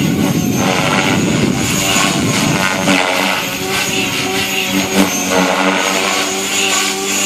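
Align T-Rex 500X electric radio-controlled helicopter in flight: its motor and main rotor make a continuous buzzing drone. The blade noise is rough for the first two seconds or so, then settles to a steadier pitched hum.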